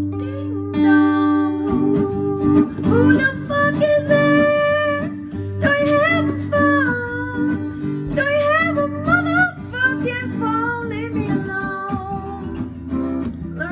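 Music: strummed acoustic guitar, joined about two seconds in by a melody line that bends and slides in pitch.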